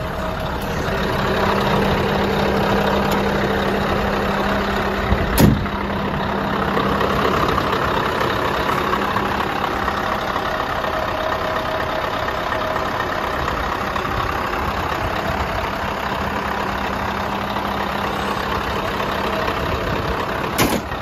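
Scania R500's V8 diesel engine idling steadily, with a sharp knock about five seconds in and a smaller one near the end.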